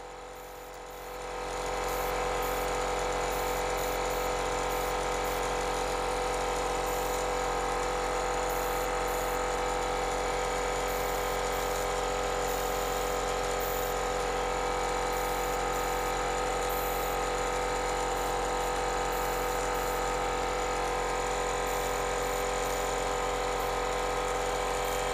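Small airbrush air compressor running, building up about a second in and then holding a steady electric hum, feeding a Paasche VL airbrush at about 30 PSI.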